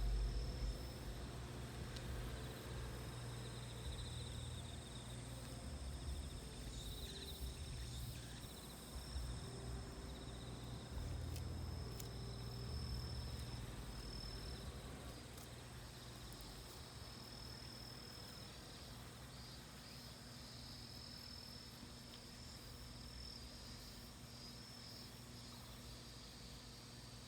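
Cicadas singing, a steady high-pitched drone, with a low rumble in the first half that dies away.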